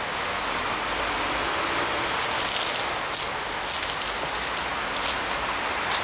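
Steady outdoor noise haze, with a series of short rustling bursts from about two seconds in. No cat yowls or growls can be made out.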